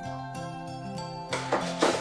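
Background music with steady melodic notes. Near the end comes a brief burst of noise over it.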